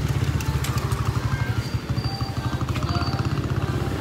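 Small motorcycle engine idling, a steady rapid low putter.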